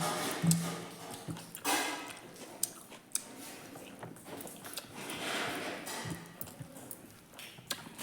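A person chewing and biting food close to the microphone: irregular short clicks and bursts of mouth noise.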